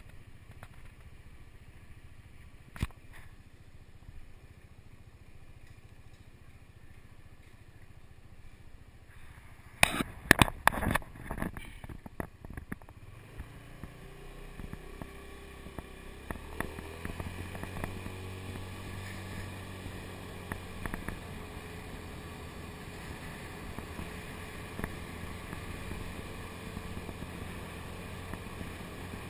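Motor scooter engine idling low, with a sharp click about three seconds in and a cluster of loud knocks and clicks close to the microphone around ten seconds in. The scooter then pulls away with a rising engine note and runs steadily along the road with wind and road noise.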